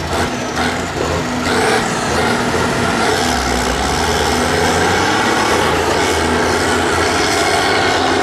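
Tractor's diesel engine running hard under load on a steep dirt climb, with dark exhaust smoke pouring out; the sound grows louder about two seconds in.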